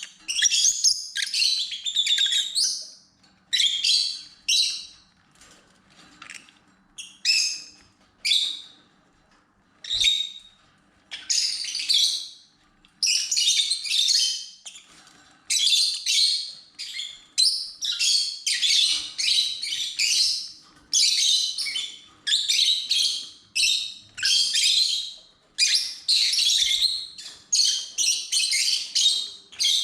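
Lovebirds chattering in shrill, rapid chirps, in bursts one after another with only short lulls.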